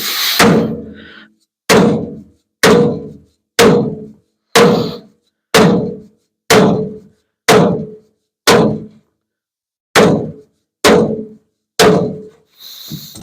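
Hammer tapping down a dent in a 1950 Ford F1's front sheet metal during paintless dent repair. About a dozen sharp strikes come roughly one a second, each ringing briefly, with a slightly longer gap before the last three.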